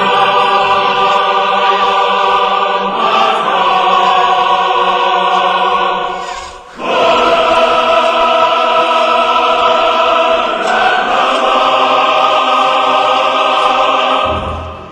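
Choral music: layered voices sing long held chords that change every few seconds, with a short break about halfway through and a fade near the end.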